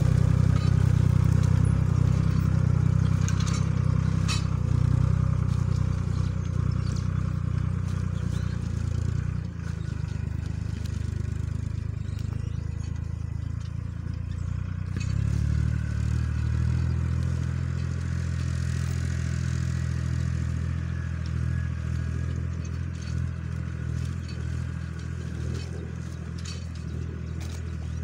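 Tractor engine running steadily under load as it pulls a disc plough through the soil, slowly growing fainter as it moves away.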